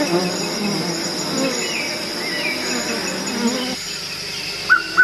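Swarm of honeybees buzzing densely over broken honeycomb, over a steady high-pitched insect drone. The bee buzzing cuts off suddenly about four seconds in, and a bird's short whistled calls come in near the end.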